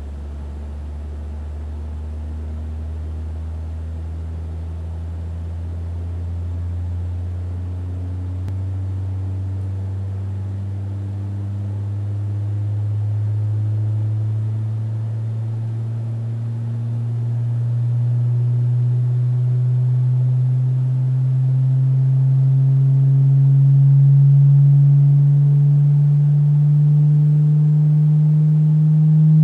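Loudspeaker fed by a function generator playing a steady low sine tone that glides slowly upward in pitch and grows louder, as the drive frequency is raised to set a soap film vibrating in its normal modes.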